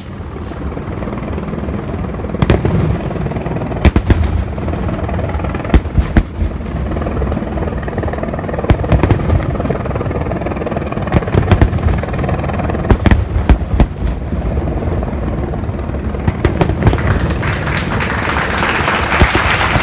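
Fireworks display: a string of sharp bangs over a continuous low rumble. About seventeen seconds in, a dense crackling hiss swells and takes over.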